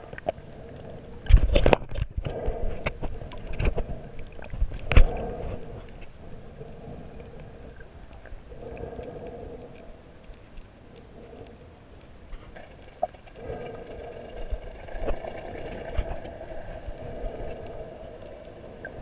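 Muffled underwater sound picked up by a camera during a freedive: a steady low hum, with a few sharp thumps in the first five seconds, the loudest about five seconds in.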